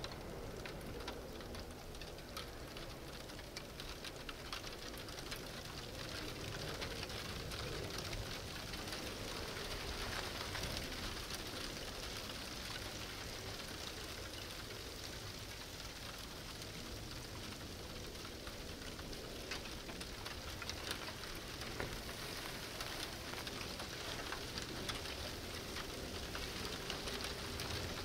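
Steady patter of precipitation: an even hiss, dense with fine crackles.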